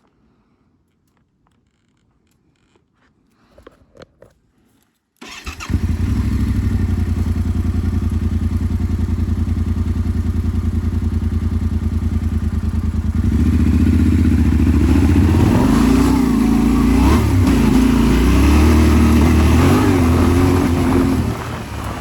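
Yamaha Ténéré 700's parallel-twin engine starting abruptly about five seconds in, after a few faint clicks, and idling steadily. From about halfway it gets louder and its pitch rises and falls as it is revved, then it eases off just before the end.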